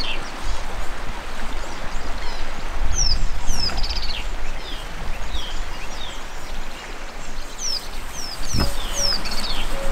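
Birds calling: short, high whistles that slide downward, in quick clusters of two or three, over a low steady rumble. A single knock comes near the end.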